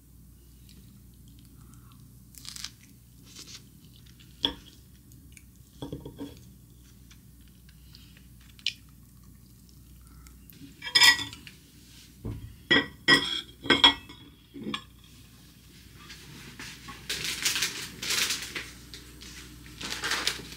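Knife and fork clinking and scraping against ceramic plates in scattered knocks, most of them clustered about halfway through, some ringing briefly. Near the end, a plastic bag crinkles as it is handled.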